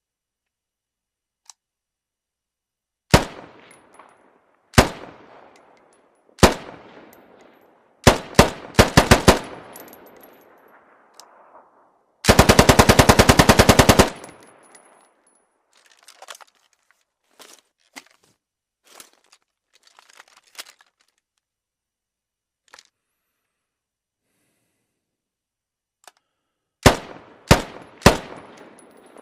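RPK light machine gun firing with a ringing echo after each shot. Three single shots come about a second and a half apart, then a short burst of about six rounds, then a long automatic burst of nearly two seconds. After a stretch of faint clicks and clinks, three more shots ring out near the end.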